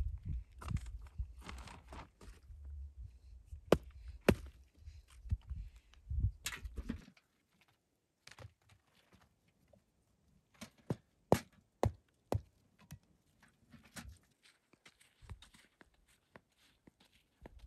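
Dry slabs of dung fuel handled and dropped into a metal bucket: a run of dull knocks, crumbling scrapes and sharp clicks over a low rumble that stops about seven seconds in. Later come sparser single knocks.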